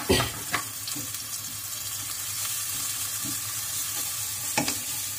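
Browned onions sizzling steadily in hot oil in a non-stick pan, stirred as a ginger, garlic and green chilli paste is mixed in, with sharp knocks of the stirring utensil against the pan near the start and about four and a half seconds in.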